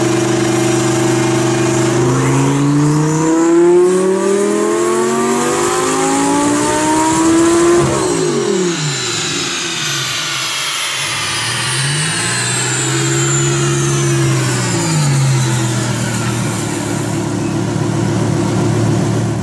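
Twin-turbo Lamborghini Gallardo V10 making a chassis dyno pull. It runs steadily at first, then climbs in pitch under full throttle for about six seconds, then lifts off and winds down with a high whine falling away. A short rev rises and falls during the coast-down before it settles to a steady run.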